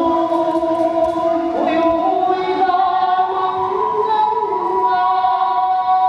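Kagura song in long drawn-out sung notes, voices holding steady pitches and swooping up into a new phrase just before two seconds in.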